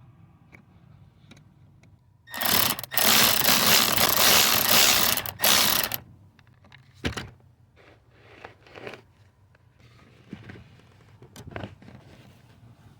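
A power tool runs in a burst of about three and a half seconds, with two brief stops, backing out a steering-shaft bolt. Scattered light metal clicks and knocks of tools on the part follow.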